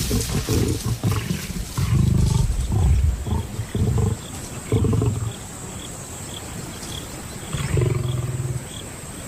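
Lions snarling and growling in a scuffle over a carcass, as a young male lion asserts himself and drives lionesses off the kill. A run of short, harsh, low bursts over the first five seconds, then another about eight seconds in.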